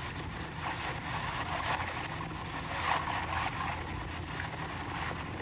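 Steady hiss and low hum from a played-back audio recording, with no clear voice in it.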